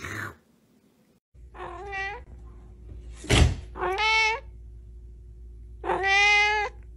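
A cat meowing three times in drawn-out calls, with a single sharp thump just before the second meow.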